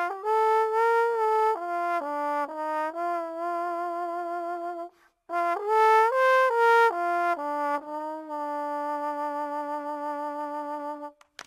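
Solo trombone playing a melody in two phrases with a short break about five seconds in, ending on a long held note.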